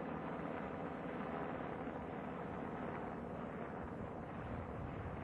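Steady machinery noise, a hiss over a low rumble with faint humming tones, on the runway around the landed space shuttle orbiter.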